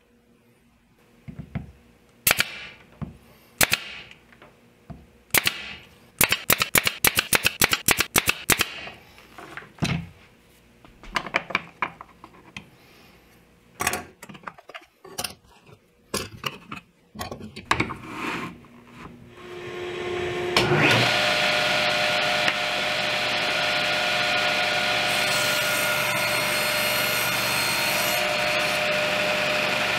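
Sharp clicks and knocks, some in quick runs, as small wooden blocks are fitted and fastened to a board. About two-thirds of the way through, a table saw starts up and then runs steadily at speed, the loudest sound.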